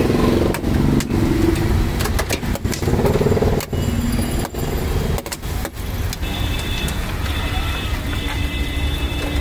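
Busy roadside street ambience: road traffic running with a low rumble, indistinct voices, and scattered sharp clicks and knocks.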